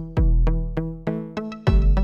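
Background music: an electronic instrumental of quick, evenly paced plucked notes over deep bass notes.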